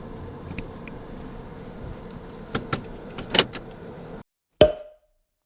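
Low rumble of a car cabin while the car is moving, with a few light clicks about two and a half to three and a half seconds in. The sound then cuts out, broken by one sharp click.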